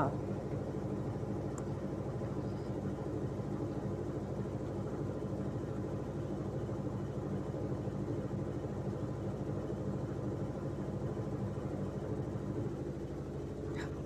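Sanken top-loading washing machine running with a steady mechanical hum near the end of its cycle, before its finishing chime sounds.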